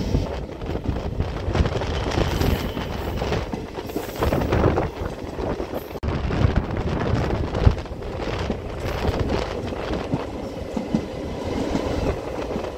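DEMU (diesel-electric multiple unit) passenger train running at speed, heard from inside the coach by an open window: a steady rumble with the wheels clattering over the track, and one sharper knock about eight seconds in.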